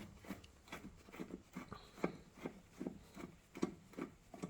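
A screwdriver working a small screw out of a Briggs and Stratton lawnmower carburettor, with short clicks and scrapes about two to three times a second as the driver turns and resets on the screw.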